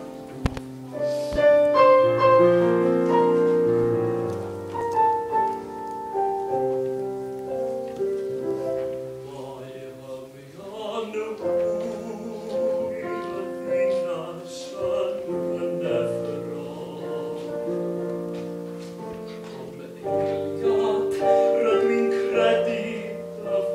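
Song performance with piano accompaniment: the piano plays alone at first, and a classical-style singing voice with vibrato comes in about halfway through.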